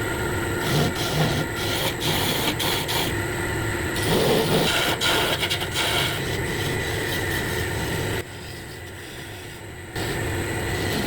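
Wood lathe running while a tool rubs and scrapes against the spinning wood of a chair leg being turned. The sound drops abruptly about eight seconds in and comes back two seconds later.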